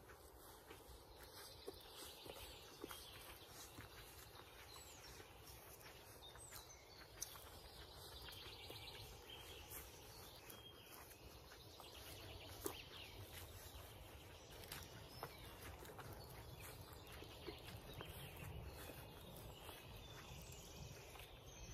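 Faint forest ambience: distant birds singing on and off, with scattered small clicks and rustles.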